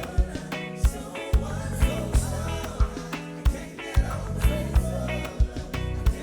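Gospel band playing a reggae groove: drum kit hits at a steady beat over a held bass line, with singing.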